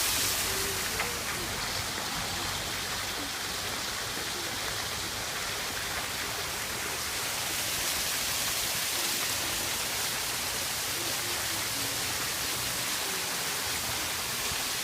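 Steady rush of running water from a mini golf course water feature.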